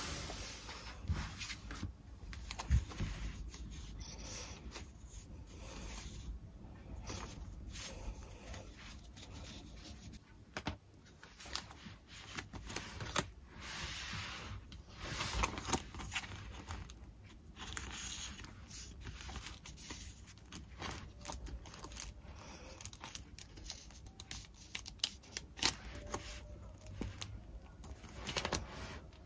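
Paper and stationery being handled by hand: irregular rustles, scrapes and small clicks, some strokes lasting about a second.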